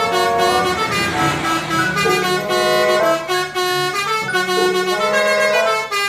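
Telolet bus's musical multi-tone air horn playing a quick run of stepped notes as the coach passes close, with a swell of engine and road noise about a second in.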